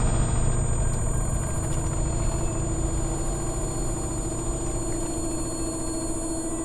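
Sci-fi sound-design drone: a dense low rumble with a steady hum and a thin high whine over it, slowly fading.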